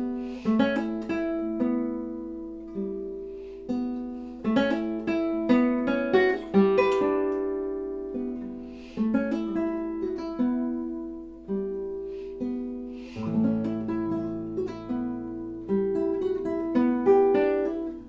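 Nylon-string classical guitar played solo: a slow, gentle line of single plucked notes and rolled chords, each left to ring and fade, with a low bass note sounding under the melody about two-thirds of the way through.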